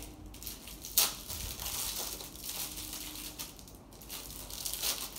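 Clear plastic packaging bag crinkling and rustling in the hands as a rhinestone headband is pulled out of it. There is one sharp click about a second in.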